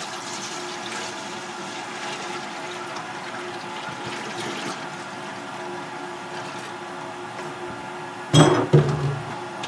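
Maple sap pouring from a plastic jug into a stainless steel bucket, a steady stream splashing into the metal. Near the end come two loud knocks.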